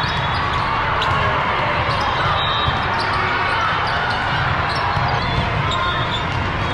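Busy hall ambience at an indoor volleyball tournament: a steady din of many voices with volleyballs being hit and bouncing, and short high squeaks, across the courts.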